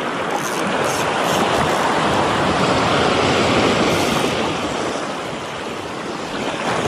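Sea surf washing onto the beach: a wave rushes in, building to its loudest mid-way and easing off again as it recedes.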